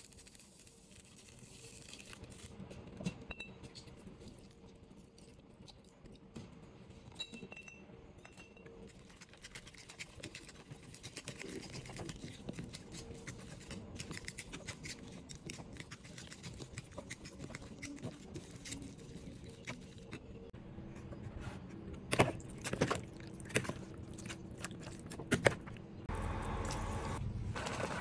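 A fork beating eggs in a bowl: quick metal clicking and scraping against the bowl, getting busier about a third of the way in, with a few sharp knocks late on. Near the end a steadier, louder noise takes over.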